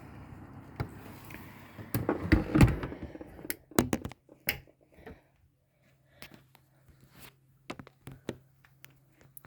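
Thumps and sharp knocks from about two seconds in, the loudest a heavy low thud, followed by near quiet with scattered light clicks over a faint steady low hum.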